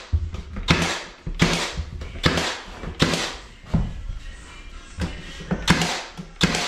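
Cordless nail gun firing nails into baseboard trim, about nine sharp shots in quick succession, roughly every three-quarters of a second.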